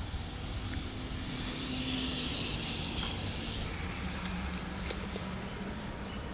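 Road traffic: a steady low rumble with a faint engine hum, and the hiss of a vehicle going past that swells and fades around the middle.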